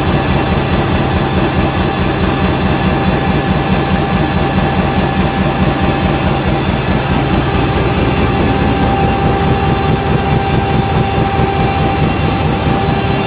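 Five-colour vacuum-transfer flexo printer slotter die cutter running: a loud, steady mechanical drone with a fast, even rattle and a thin steady whine, joined by a second steady tone about halfway through.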